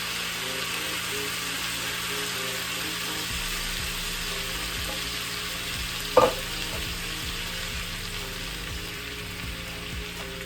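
Vegetables and plant-based sausage sizzling steadily in oil in a sauté pan, with a single sharp knock about six seconds in.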